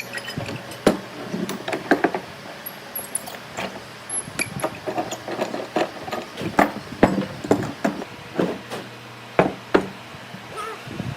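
Irregular knocks and clunks of wood and hand tools being handled and set down, over a faint steady hum.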